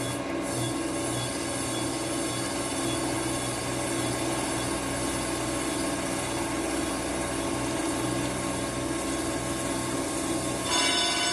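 Crankshaft grinding machine running steadily, its wheel grinding a main journal of a ZMZ-402 crankshaft down to the first repair size. A brighter, higher whine joins near the end.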